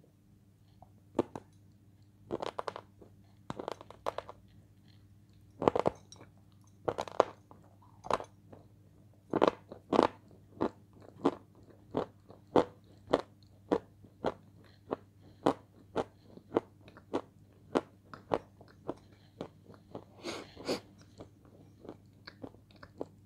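Close-up crunching as a thin, crisp piece of food is bitten and chewed. There are several loud, irregular crunches at first, then a steady chewing rhythm of about three crunches every two seconds.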